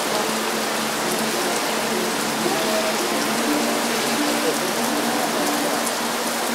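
Steady rain falling on wet paving: an even, unbroken hiss of drops.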